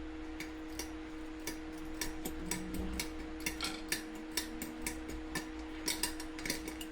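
Ratcheting wrench clicking in irregular runs as it turns the rusted nut on a dirt bike's rear-wheel valve stem. A steady low hum runs underneath.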